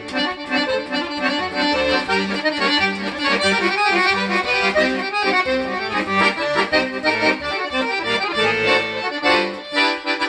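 Italian Vercelli bayan (button accordion) being played, with rhythmic bass notes under changing chords. The instrument has just been repaired and tuned.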